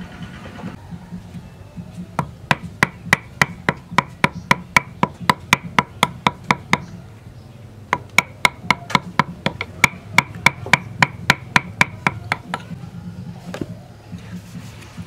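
A carving chisel driven into wood by quick, even mallet blows, about four a second, in two runs of several seconds each. Each blow is a sharp knock with a slight ring.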